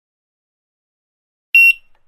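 A single short checkout barcode-scanner beep about one and a half seconds in: one high, steady tone with a brief tail, after silence.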